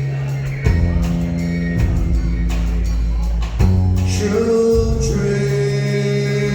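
Live rock band playing, with held chords that change twice. A male singer comes in with a drawn-out word near the end.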